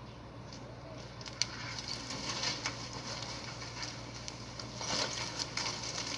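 Fire on a burning apartment balcony crackling, with irregular sharp pops over a noisy rush that grows louder from about a second in.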